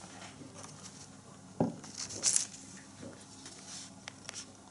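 Faint handling noises of knives being put down and picked up: a soft knock about a second and a half in, then a brief rustle, with a few small clicks.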